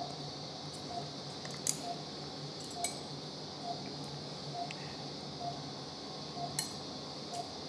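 Steel surgical instruments (needle holder and forceps) clicking and clinking a few times during suturing. Under them an anaesthesia monitor gives a short pulse beep a little faster than once a second, over a steady hiss.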